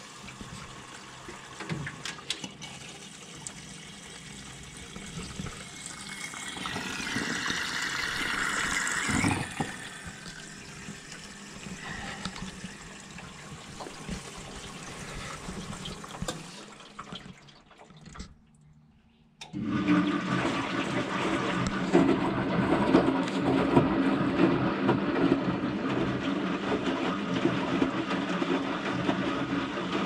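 Front-loading washing machine filling with water, a steady hissing rush that swells around eight seconds in. After a brief near-silent gap about eighteen seconds in, the machine runs louder, with the drum turning and tumbling the wet rags in sloshing water.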